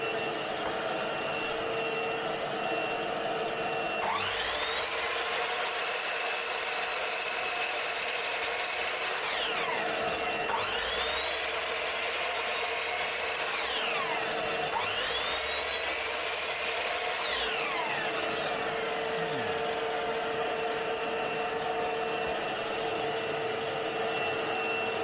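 Shop vac running steadily with a constant whine. A Ryobi EMS 254 corded mitre saw's motor is started three times over it, each time spinning up to a high whine, holding for a few seconds and winding down.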